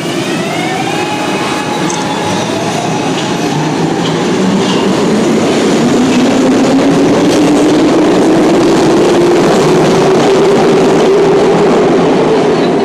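SEPTA Market-Frankford Line M4 subway train running out of an underground station, its motor whine rising in pitch as it picks up speed over the rumble of wheels on rail. The sound grows louder through the middle and stays loud to the end.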